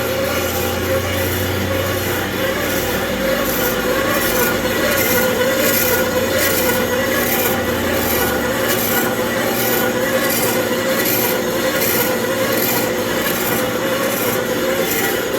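Brake drum lathe turning a semi-truck brake drum, the cutting bit scraping steadily around the drum with a wavering squeal and a faint regular pulse. A low hum underneath stops about eight seconds in.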